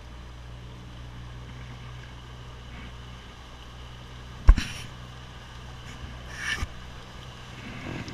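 Speed boat's engine running with a steady low drone. A single sharp, loud knock comes about four and a half seconds in, and a short hissing burst about two seconds later.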